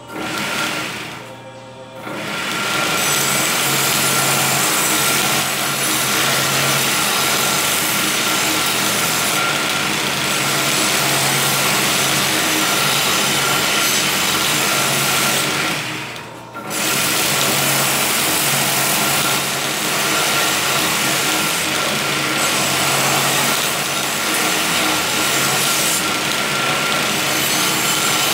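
Homemade belt sander driven by a sewing-machine motor, running with a blade ground against the abrasive belt: a steady, loud grinding hiss over the motor's hum and whine. It drops off briefly near the start and again about halfway through, then resumes.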